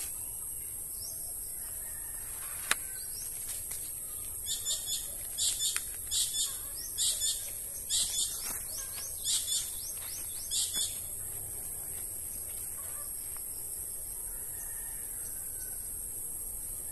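A small bird chirps in quick bursts of high, falling notes, about ten clusters over several seconds in the middle, over a steady high-pitched drone of insects. A single sharp click comes about three seconds in.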